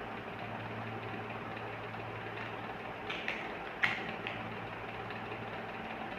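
Steady low background hum, with a few light clicks from plastic beads and thread being handled as beads are strung for a bracelet; the sharpest click comes a little under four seconds in.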